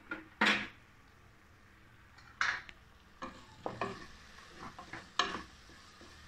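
A metal spoon scraping and stirring in a pot of frying onion and tomato as the crushed ginger-garlic paste is mixed in: a handful of separate scrapes over a faint sizzle.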